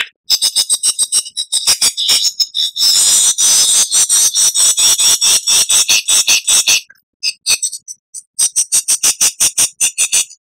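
Lyrebird song: rapid runs of short, high clicking notes, about eight a second. A dense stretch sits in the middle, then a brief pause and another quick run that breaks off near the end.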